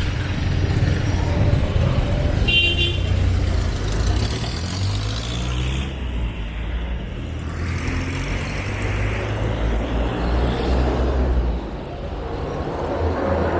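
Busy city street traffic: vehicle engines rumbling steadily, with a short high-pitched horn toot about two and a half seconds in.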